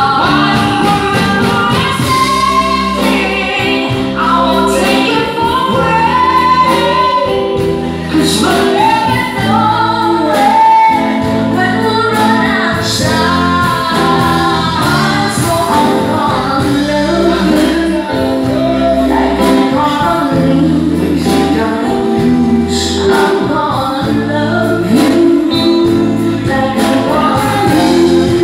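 Live band playing a song: several singers, women among them, singing together over amplified electric guitar, keyboard and drums with a steady beat.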